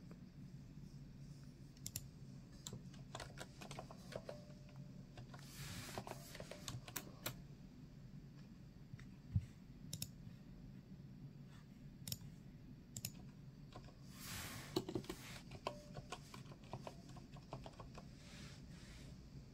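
Computer keyboard keys clicking sparsely and irregularly over a steady low hum, with two short rustling swells about five and fourteen seconds in.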